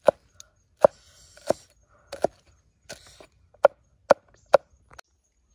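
Cleaver chopping garlic cloves on a round wooden chopping block: about eight sharp knocks of the blade into the wood, unevenly spaced, with faint scraping between some strokes.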